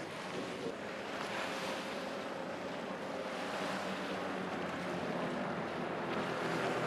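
Wind rushing on the microphone over the distant, steady drone of propeller aircraft engines flying overhead.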